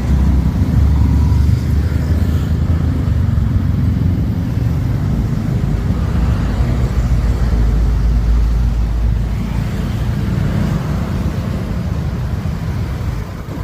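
City street noise with a heavy, steady low rumble, typical of traffic running by.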